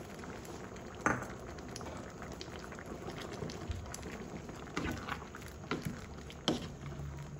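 Mung bean and pork soup bubbling at a simmer in a pan, with a few sharp knocks and splashes as a wooden spatula stirs it.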